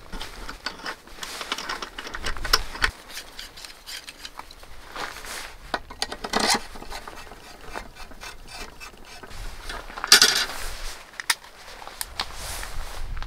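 Camping gear being handled during setup: rubbing and rustling with scattered small clicks and light knocks, and a sharper clatter about ten seconds in.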